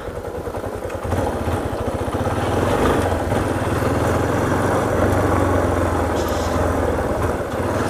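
Motorcycle engine running under way on a rough gravel road. It pulls away and gets louder about a second in, then holds steady.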